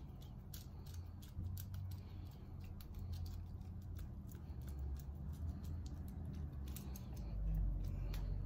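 Faint, irregular small plastic clicks and rattles as clip-on wire-number markers are handled and fitted onto a control wire, over a low steady hum.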